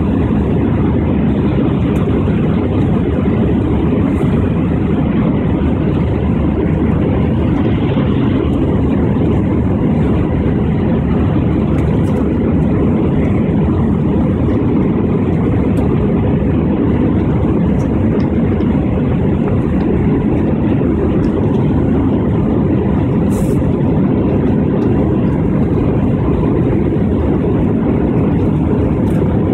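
Steady low rumble of a jet airliner's engines and rushing air, heard from inside the passenger cabin while the plane climbs out after takeoff.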